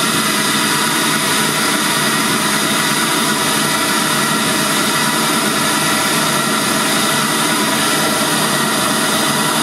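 FSD audio Standart 165 V 6.5-inch midrange car speaker playing a loud, steady hiss-like test noise for a sound-level measurement, which reads about 74 dB.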